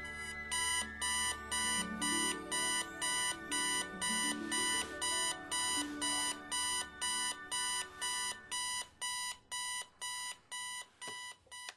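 Digital bedside alarm clock beeping, about two buzzy beeps a second. The beeps grow fainter over the last few seconds and cut off near the end.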